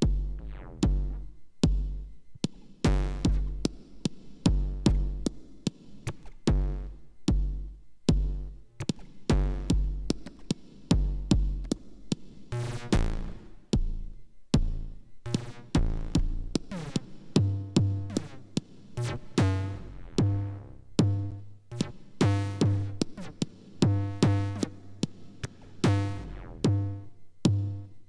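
Minimal techno from a VCV Rack modular patch: two Kickall synthesized kick drums play a steady repeating pattern of deep, pitched thumps with short decays. About two-thirds of the way in, the pattern moves up to a higher pitch.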